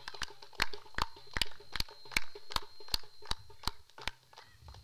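A run of sharp, irregular clicks, about two or three a second, thinning out after about four seconds, over a faint steady high tone.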